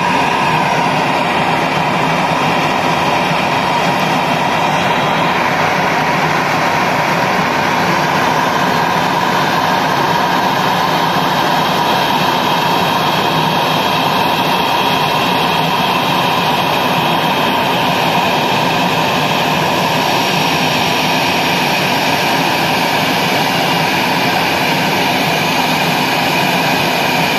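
Twin-engine jet airliner's turbofan engines running at taxi idle as the aircraft taxis in: a loud, steady whine with a high tone.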